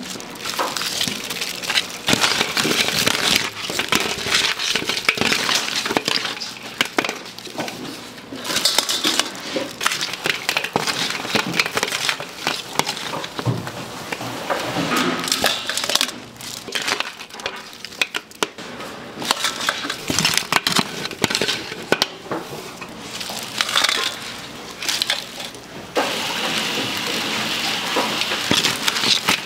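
Pieces of blue crab clattering and crunching against each other as they are handled, in a dense, irregular run of clicks and cracks of shell. A steady hiss comes in near the end.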